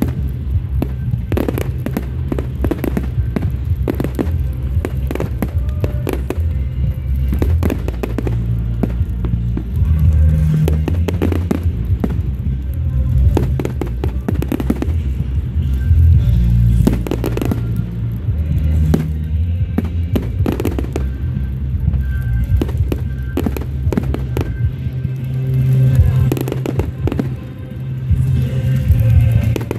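Fireworks bursting and crackling in quick succession over loud music with a heavy bass line.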